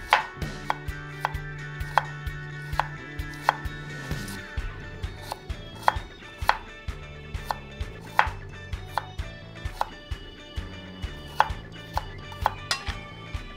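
Chef's knife chopping garlic cloves on a wooden cutting board: sharp, irregular knocks of the blade hitting the board, about two or three a second.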